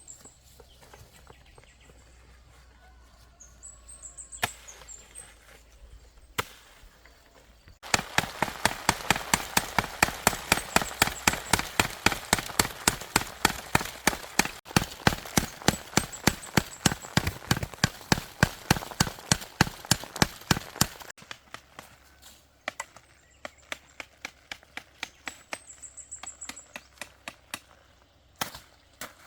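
A fast, even run of knocks or chopping strikes, about four a second, lasting about thirteen seconds, with a few scattered single knocks before and after.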